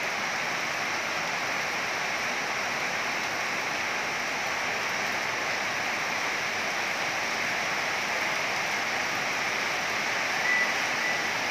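Heavy rain falling steadily, a dense, even hiss of rain on the surrounding roofs and pavement.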